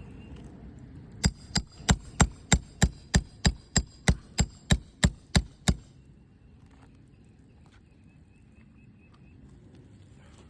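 Roofing hammer striking a steel nail puller about fifteen times in quick, even succession, about three blows a second, each blow ringing metallically, to drive the puller under a shingle nail and pull it out.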